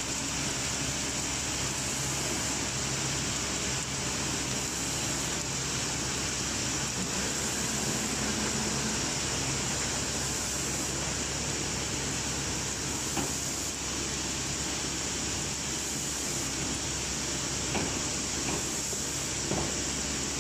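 Corrugated cardboard single facer machine running with a steady mechanical drone and a constant high hiss. A few light knocks come in the second half.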